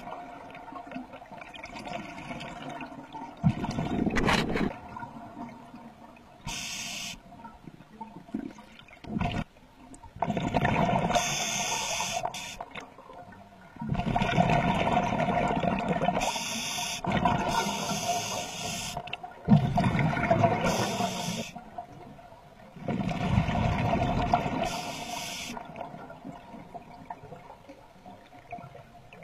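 Scuba diver breathing through a regulator underwater: a hiss on each inhale alternating with a rushing gurgle of exhaled bubbles, a breath every five or six seconds.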